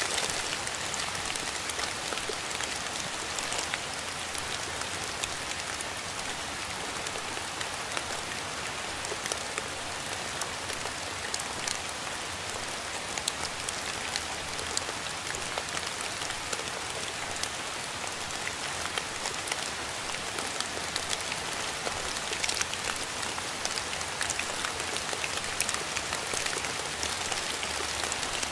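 Steady rain falling on a surface: an even rushing sound with many sharp individual drop impacts ticking through it.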